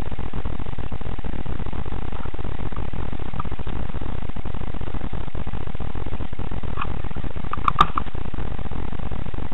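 Steady low rumbling noise on a cheap action camera's poor microphone, with a brief sharp click and a short high-pitched sound about eight seconds in.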